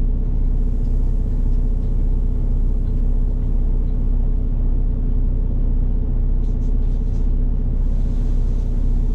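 Straight-piped, fully deleted PACCAR MX13 diesel of a semi truck running steadily, an even low drone with no change in revs.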